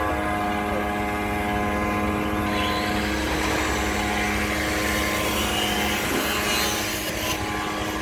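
Strand pushing machine's motor running steadily, its upper and lower toothed rollers turning to drive steel prestressing strand into the cable duct of a concrete beam. A hiss joins the machine noise about two and a half seconds in.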